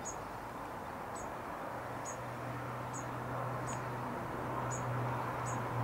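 Young dunnocks giving short, thin, very high call notes, about one a second. A steady low hum comes in partway through.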